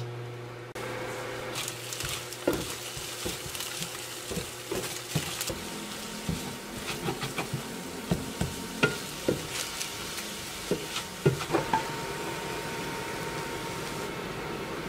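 Beaten egg sizzling in a nonstick frying pan while a wooden spatula scrapes and knocks against the pan, stirring it into scrambled egg. The knocks come irregularly and stop about three seconds before the end, leaving only the steady sizzle.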